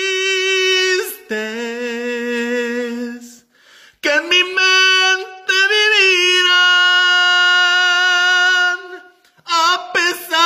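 A man singing a slow romantic ballad, holding long drawn-out notes with vibrato, broken by two short pauses: one about three and a half seconds in and one near nine seconds.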